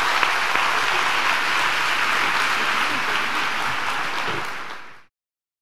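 Large audience applauding at the close of a talk, a dense steady patter of clapping that fades out and cuts to silence about five seconds in.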